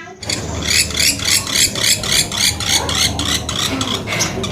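Pelatuk beras woodpecker calling: a rapid, even series of harsh notes, about four a second, thinning out near the end.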